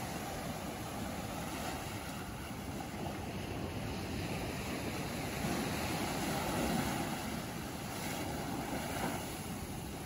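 Ocean surf breaking and washing up a sand beach, a steady wash that swells about halfway through as a wave runs up the sand.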